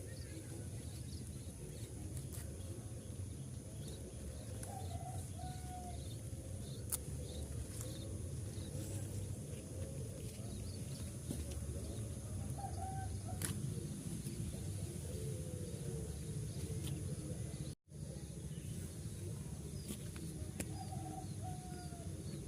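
Rural outdoor ambience: a steady low rumble and a steady high-pitched tone, with short bird calls now and then and a few sharp clicks. The sound drops out completely for a moment near the end.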